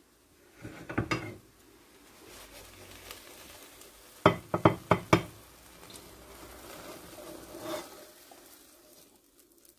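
A frying pan knocking against a ceramic plate as a potato omelette is slid out onto it: a quick run of about five sharp clinks a few seconds in, with a softer knock about a second in and light scraping around them.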